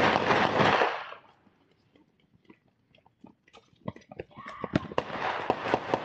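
Rapid gunfire picked up by a doorbell camera's microphone. Scattered faint pops are followed, from about four seconds in, by a steady run of sharp shots, about three a second. A loud rush of noise fills the first second.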